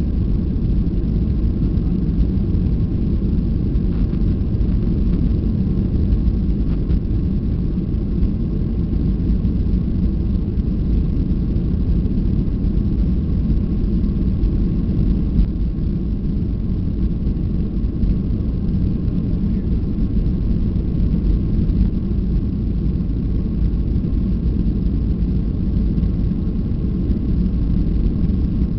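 Boeing 737-800's CFM56-7B jet engines at takeoff thrust: a steady low rumble with a faint steady whine above it as the airliner climbs out.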